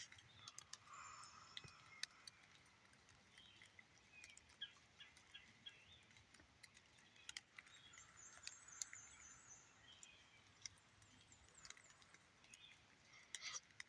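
Near silence, with faint bird chirps now and then and a few light ticks.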